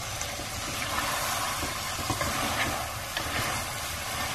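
Mutton and tomato curry sizzling steadily in an open aluminium pressure-cooker pot as it is stirred with a spoon, with a few faint clicks of the spoon.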